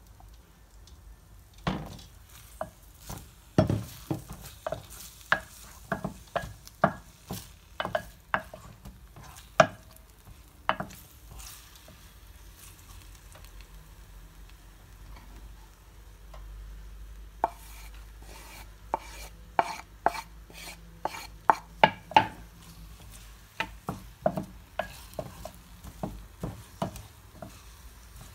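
Wooden spoon stirring onion and a chicken leg in a tagine base, with many sharp taps and scrapes against the pan in two busy spells and a quieter stretch between them; the onion frying faintly in the oil underneath.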